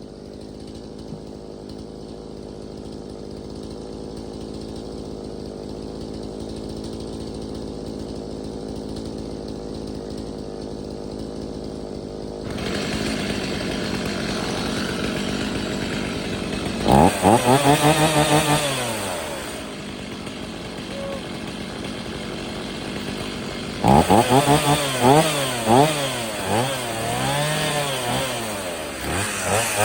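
Stihl two-stroke chainsaw running steadily at idle, then revved: one burst of throttle about two-thirds of the way through and a run of quick revs near the end, the engine note rising and falling.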